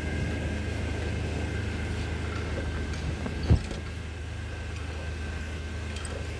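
Steady low mechanical hum with a faint high whine, and a single low thump about halfway through.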